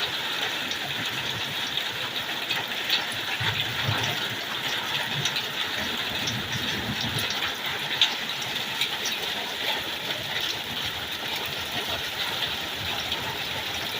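Pea-sized hail falling hard and steadily: an even hiss with many small, sharp ticks of hailstones striking.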